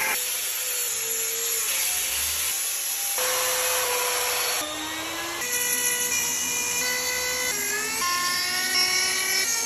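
High-speed rotary carving tools, a flex-shaft rotary tool among them, whining as they grind into wood. The whine holds steady in each cut, then jumps to a new pitch several times as the tool and its load change.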